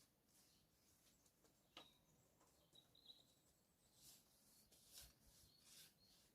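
Near silence, with faint scattered high bird chirps.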